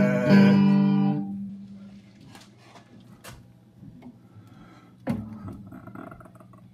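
Guitar chord strummed and left to ring, dying away within about two seconds, followed by a few faint clicks and a single knock about five seconds in.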